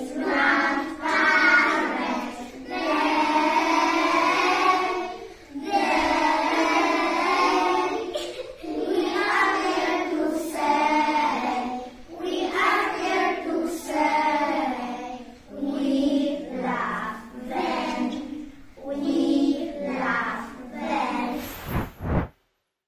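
A group of young children singing together in Polish, phrase after phrase. The singing cuts off suddenly near the end.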